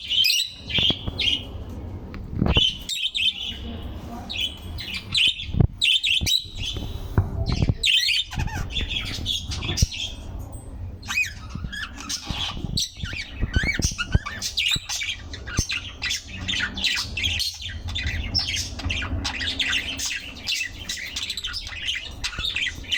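A flock of small birds chirping and squawking continuously in quick, overlapping calls, with a low rumble and a few thumps underneath.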